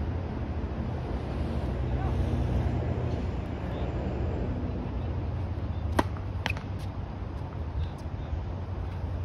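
Wind buffeting the microphone, a steady low rumble. About six seconds in come two sharp knocks half a second apart, and a fainter click near the end.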